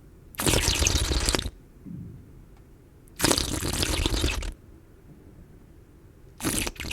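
A person slurping liquid in a series of separate slurps: two long slurps of about a second each, then a shorter one near the end.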